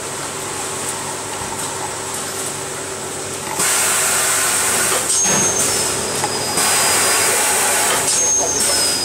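Fillflex pneumatic filling machine running while it dispenses into pots on a conveyor: a steady hum and hiss, with a louder airy hiss that cuts in abruptly about three and a half seconds in and steps up and down several times after.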